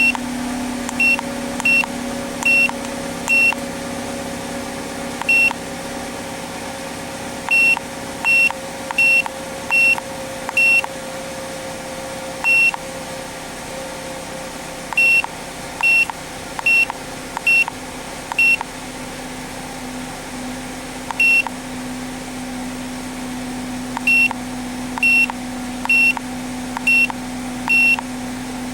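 Handheld automotive scan tool beeping with each key press, about two dozen short, high beeps in irregular runs as the menus and live-data screens are scrolled. Underneath is a steady low hum from the car's 2.2L Ecotec four-cylinder idling.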